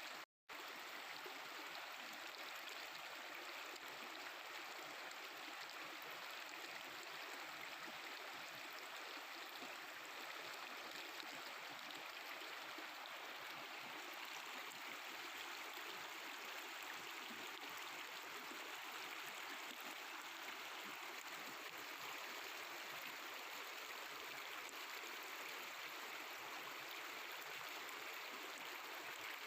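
Mountain river water flowing and babbling steadily.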